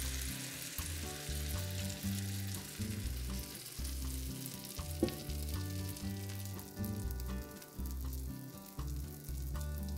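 Sourdough pancake batter sizzling in melted butter on a cast iron griddle, under background music.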